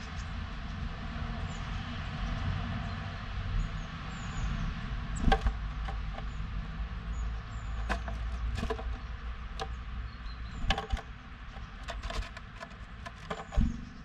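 A blue tit moving and pecking in a wooden birdhouse: a scatter of sharp taps and knocks on wood, loudest about five seconds in and near the end, over a steady low rumble. Faint high chirps come now and then.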